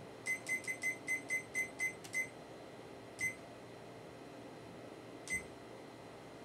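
Digital kitchen timer beeping with each button press as it is set to ten minutes: a quick run of about nine short high beeps in the first two seconds, then two more single beeps spaced out after.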